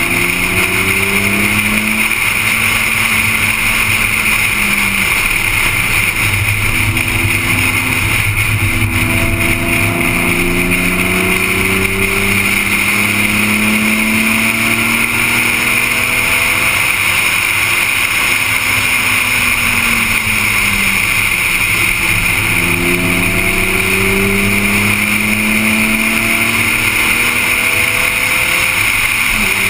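A car engine at track pace, its pitch climbing through the gears, holding, then dropping off under braking several times over, with steady wind and road noise throughout.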